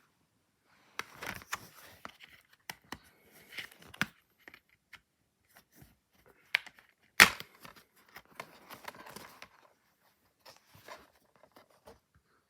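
DVD case and plastic packaging being handled: tearing, crinkling and rustling with scattered clicks, and one sharp snap about seven seconds in.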